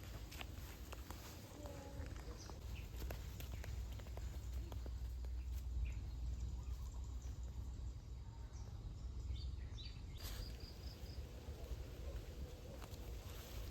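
Outdoor ambience: a steady low rumble like wind on the microphone, scattered small clicks and rustles, and a bird chirping a few times about ten seconds in.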